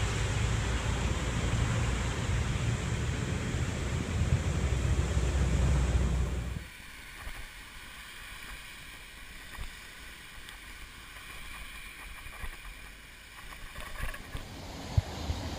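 Wind buffeting the microphone, with a rumbling rush of noise, while riding along a path. About six and a half seconds in it cuts off abruptly to a much quieter, muffled background with a few faint clicks, growing a little louder again near the end.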